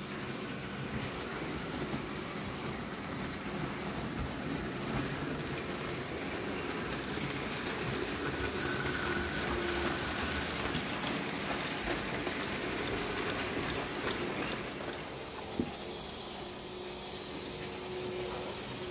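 Model freight train of boxcars rolling past on the track, the running noise building to its loudest about halfway and easing off after. There is one sharp click near the end.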